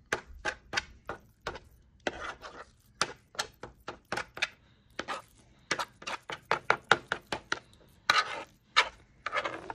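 A knife chopping down through a meatloaf mix of ground beef, pork and veal, dividing it into portions, with many quick, sharp knocks as the blade meets the bottom of the bowl.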